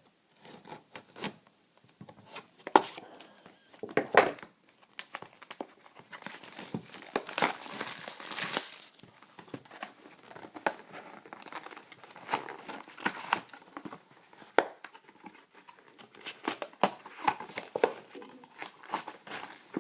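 Plastic wrapping being torn and crumpled off a box of trading cards, with irregular crinkling and crackling and a louder stretch of tearing about seven seconds in.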